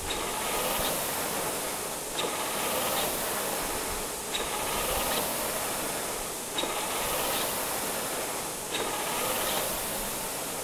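Concept2 Model D rowing machine's air flywheel fan whooshing with each drive, about one stroke every two seconds. Each stroke carries two light clicks from the dampening springs fitted in the handle, which are not yet worked in enough to stop clicking.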